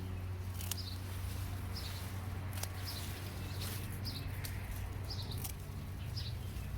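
A small bird repeats a short high chirp about once or twice a second over a steady low hum. A few sharp clicks sound at intervals, which fit pruning shears snipping through potato stems.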